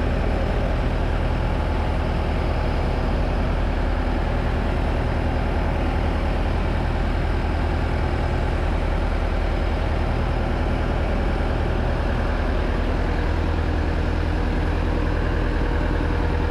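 A fishing boat's engine running steadily under way, a continuous low drone.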